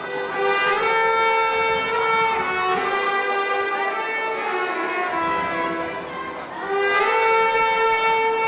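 Trumpet playing a slow melody of long held notes, with accordion accompaniment.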